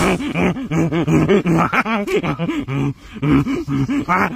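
A man laughing loudly in quick repeated bursts, with a brief pause about three seconds in.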